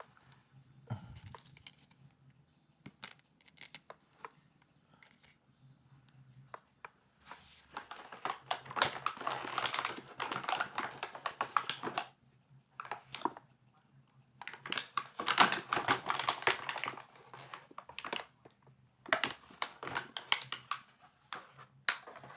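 Handling of plastic toy parts and packaging: crinkling plastic and small clicks and taps, in several dense bursts of rustling.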